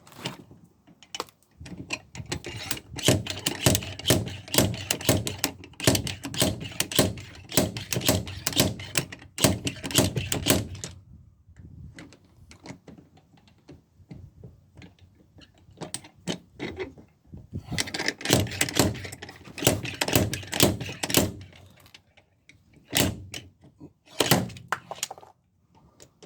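Slide hammer being worked on a dented steel van sill: a fast run of repeated knocks lasting several seconds, a pause, then another run and a few single knocks near the end.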